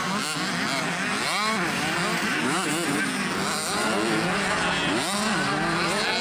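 65cc two-stroke motocross bikes revving hard. Several engine notes overlap, each one's pitch sweeping up and dropping again as the riders work the throttle and shift.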